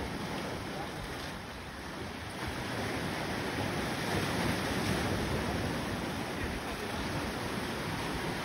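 Small sea waves washing over and around shoreline rocks, a steady rushing that swells a little a few seconds in, with wind on the microphone.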